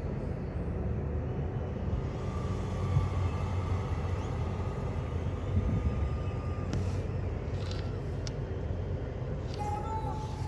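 Steady low rumble of a moving vehicle, with a few faint clicks in the second half.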